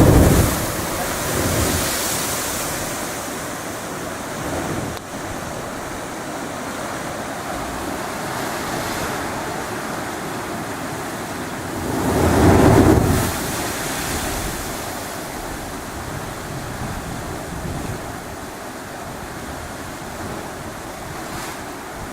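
La Bufadora marine blowhole erupting twice, about twelve seconds apart, each a loud rushing surge of sea water and spray. Between the eruptions there is steady surf and wind on the microphone.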